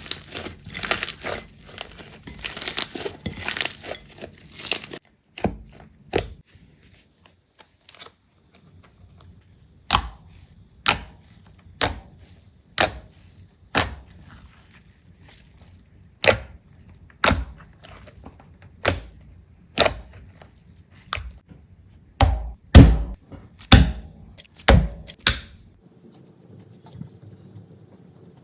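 Slime being handled at close range: dense crackling for the first few seconds, then, after a short lull, a series of sharp separate clicks about once a second.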